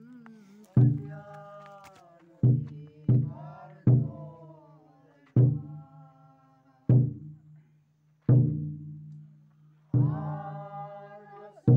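Large barrel drum struck in a slow, steady beat, about one stroke every second and a half with a quicker pair early on, each stroke ringing low and long. A group chants a song between the drum beats.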